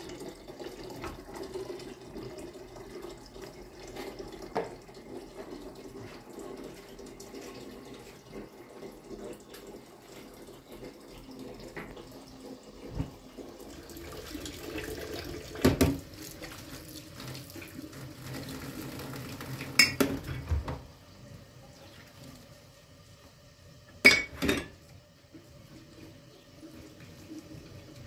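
A kitchen tap running into a sink while dishes are washed, with now and then the clatter of dishes and glasses against the sink. The water stops about three quarters of the way through, and a few sharp clinks of glassware follow.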